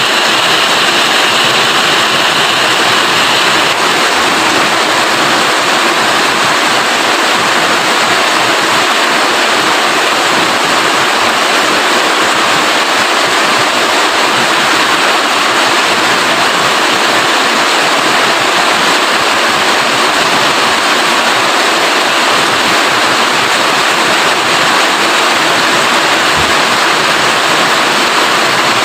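Steady heavy rain falling, a dense, even hiss with no breaks.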